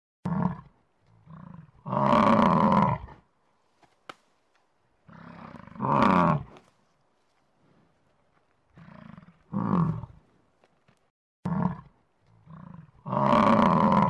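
Cape buffalo calling with deep, drawn-out bellows about every four seconds, each led in by one or two shorter grunts.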